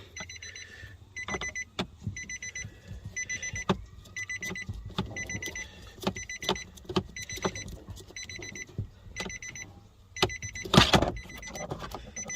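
Nissan AD wagon's electronic warning buzzer beeping over and over, about one and a half beeps a second, with clicks and knocks of parts being handled under the dash and a louder knock near the end.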